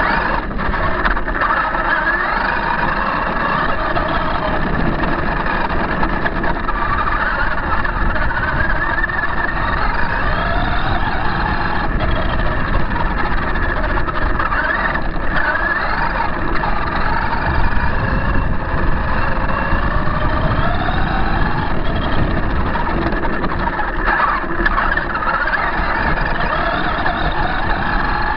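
Onboard sound of a Losi High Roller radio-controlled truck driving: its motor and drivetrain whine rising and falling in pitch as the throttle changes, over a steady rumble and rattle from the chassis and tyres on rough ground.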